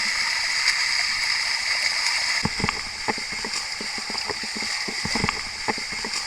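Steady rushing of water cascading down the waterfall. From about two and a half seconds in, a run of short, irregular sharp splashes and clicks sounds close by, several a second.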